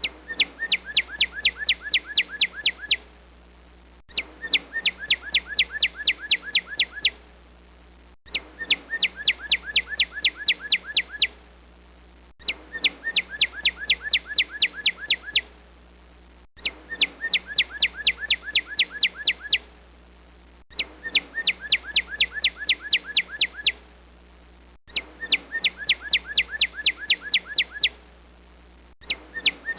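A songbird call looped as a ringtone: a three-second string of about a dozen quick, high notes, each sliding downward, repeated about every four seconds.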